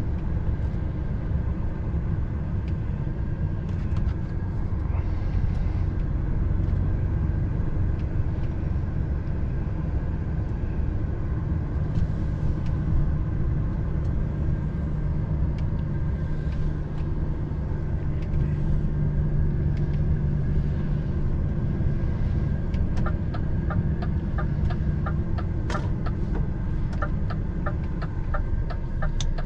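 DAF heavy recovery truck's diesel engine running steadily under way, heard from inside the cab as it tows a loaded lorry. A quick, regular ticking joins in near the end.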